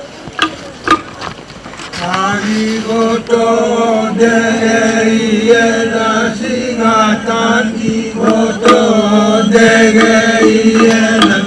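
A group of men chanting together in a traditional Fijian ceremonial chant around the kava bowl, starting about two seconds in over a held low note. Two short sharp sounds come just before it begins.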